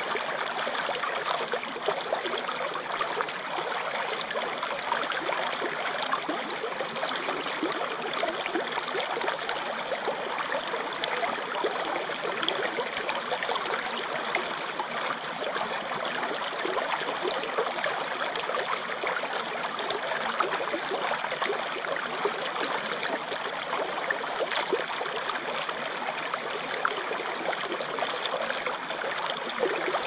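Shallow rocky stream running over and between boulders close to the microphone: a steady rush of water with many small splashes and trickles.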